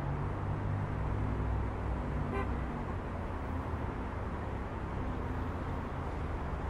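Road traffic: car engines running steadily as vehicles pass, with a very short car-horn toot about two and a half seconds in.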